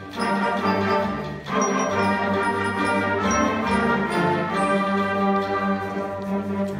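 School concert band playing held chords, with the brass prominent. The sound dips briefly about one and a half seconds in, then carries on.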